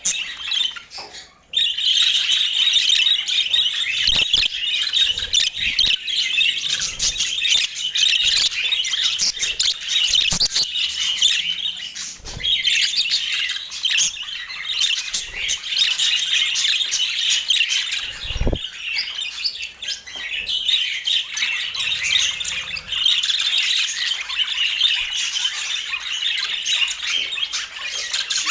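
A flock of budgerigars chattering and warbling continuously, with dense overlapping chirps and squawks. The chatter breaks off briefly about a second in, and a single low thump is heard about two-thirds of the way through.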